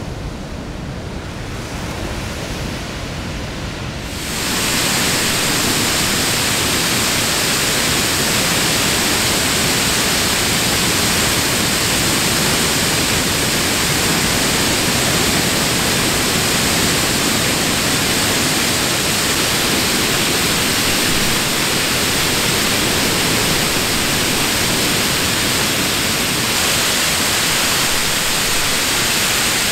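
Ocean surf breaking and washing up the beach for the first four seconds, then an abrupt change to the loud, steady rush of Alamere Falls, a waterfall pouring down a cliff onto the beach, heard close up.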